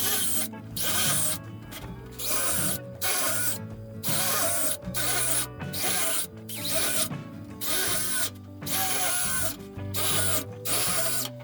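Repeated rasping strokes of a hand tool working a piece of metal, about one stroke a second, over background music.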